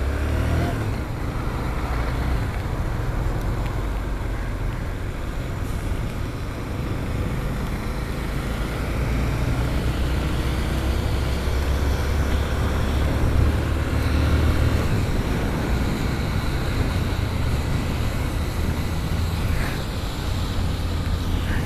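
Honda CB300 motorcycle riding on a wet road: a steady, heavy low rumble of wind on the microphone over the single-cylinder engine running and the tyres hissing on the wet asphalt.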